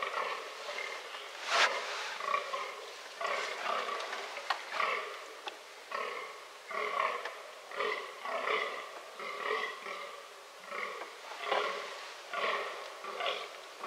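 Fallow buck rutting groans: a steady series of short, belching grunts, about one to two a second. A single sharp click about one and a half seconds in is the loudest sound.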